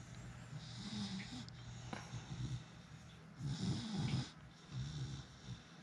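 Beagle making a series of low, nasal grunting groans, the strongest a little past halfway, while its cheek is being massaged.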